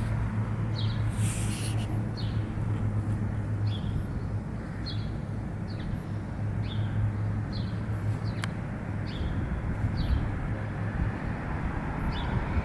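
A bird repeating a short, high chirp about once a second, over a low steady hum that fades out about halfway through.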